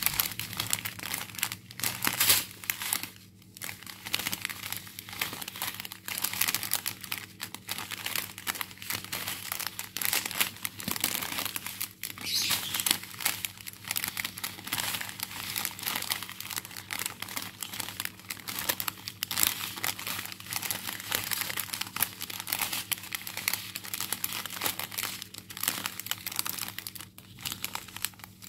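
Small plastic zip-lock bags of diamond painting drills crinkling and crackling irregularly as they are handled and unfolded.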